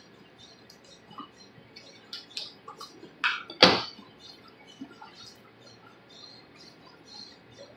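Handling sounds of a whole bluefin tuna being broken down with a long knife and gloved hands: scattered small clicks and ticks, with a louder stroke and then a sharp knock about three and a half seconds in.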